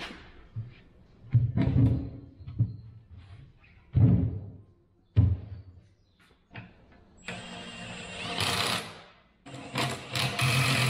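A few heavy knocks and clunks at the tractor wheel, then a cordless impact wrench starts about seven seconds in, hammering on the bolts at the centre of a tractor wheel in a steady rattling run, with a brief pause before it starts again.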